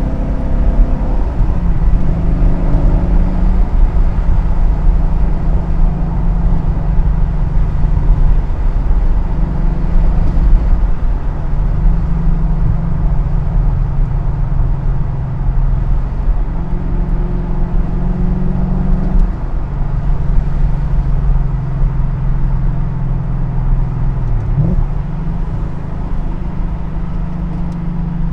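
BMW E39 M5's 4.9-litre V8 running through a muffler-deleted exhaust under way, a deep steady engine note with a heavy low rumble. The pitch holds at one level, then steps abruptly up or down several times, with one quick sweep about 25 seconds in.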